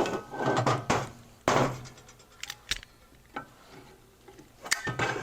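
A hand tool scraping and clicking on an aluminium Harley Sportster engine case as a worn helicoil thread insert is worked out of it. There are two rough scrapes in the first two seconds, then scattered sharp metallic clicks.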